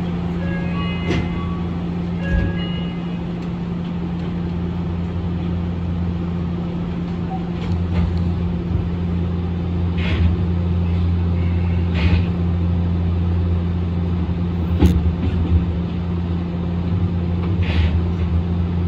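Steady electrical and mechanical hum inside a Yui Rail monorail train's cab as it stands at the platform. A few short chime tones sound near the start, and several sharp knocks and clicks come later.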